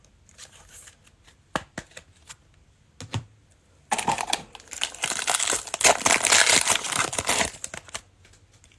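A trading-card pack's foil wrapper being torn open and crinkled, for about four seconds in the second half. Before it come a few light clicks and taps of cards being handled.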